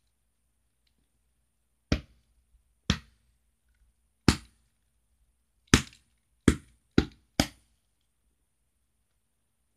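A hand patting a baby doll's back: seven sharp pats, the last few coming quicker.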